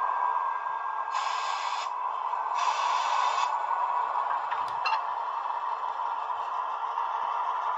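A Roco H0 model of a DB class 218 diesel locomotive with an express coach, giving a steady noisy running sound as it moves along the track. Two short louder hisses come in the first half, and a few light clicks come near the middle.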